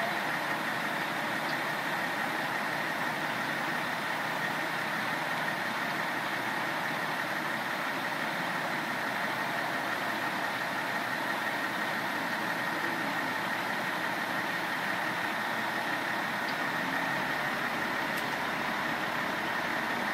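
Heavy diesel engine running steadily at idle, with a steady high whine over the engine noise.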